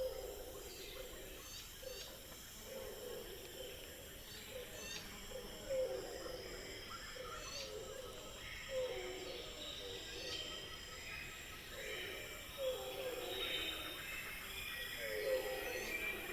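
Jungle ambience: a steady high-pitched insect drone, short rising bird chirps, and low animal calls repeating about every second and a half to two seconds.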